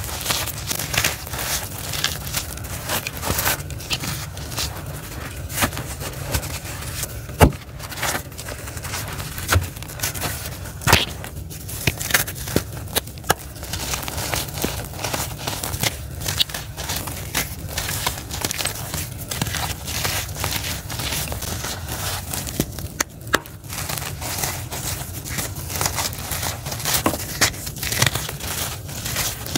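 Hands crushing and raking gritty charcoal lumps and dust on a concrete floor: a continuous dry crunching and crackling of breaking grit. Two louder snaps come about seven and eleven seconds in, over a steady low rumble.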